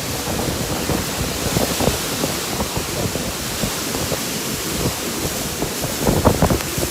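Strong storm wind blowing steadily with a constant hiss, buffeting the microphone in low gusts that grow heavier near the end.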